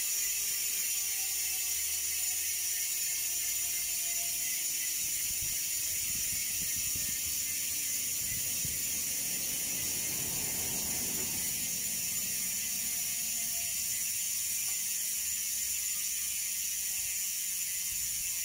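Race Face Vault rear hub freewheeling as the wheel spins, its 120-engagement-point XD freehub giving a steady, fast, high-pitched buzz of pawl clicks.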